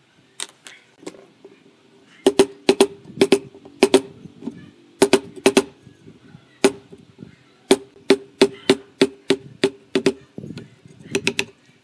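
Wood chisel struck repeatedly into the edge of a pine frame, cutting a recess for a butt hinge: sharp knocks, a couple of single blows at first and then quick irregular runs of strikes, each with a short ringing tone.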